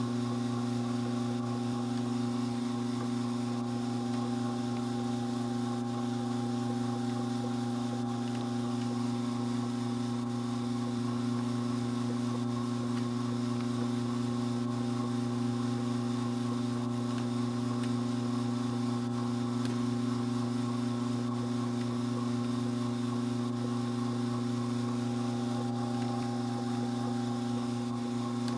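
Strauch Mad Batt'r electric drum carder running steadily, a constant motor hum, while carding dog hair.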